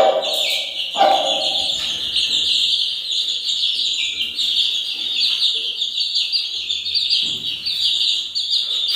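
Young chickens, about 20 days old, peeping without a break: many short, high, falling peeps overlapping into a continuous chatter. Two brief lower sounds come in the first second or so.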